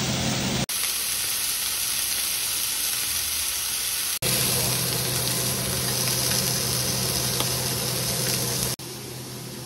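Frenched lamb chops sizzling as they sear in a hot cast-iron skillet: a steady frying hiss that cuts out for an instant twice and turns quieter near the end.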